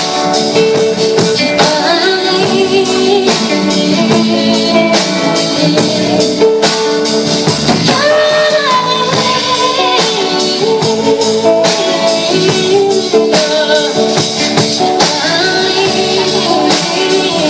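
Live band playing a pop song with a singer's voice over it and a steady percussion beat.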